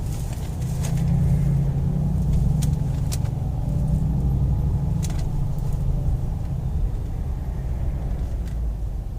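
Mercedes-AMG G63 SUV on the move: its twin-turbo V8 runs as a steady low rumble, with a few faint clicks.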